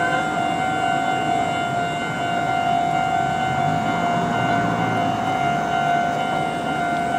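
Street noise from traffic and people at a road intersection, with a steady high-pitched tone holding one pitch throughout.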